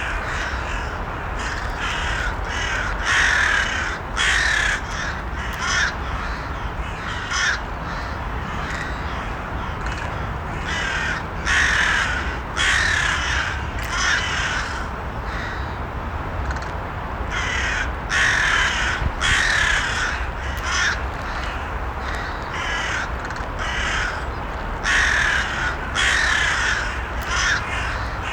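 Crows cawing repeatedly: short harsh caws coming in clusters every second or two, some louder and nearer than others, over a steady low background noise.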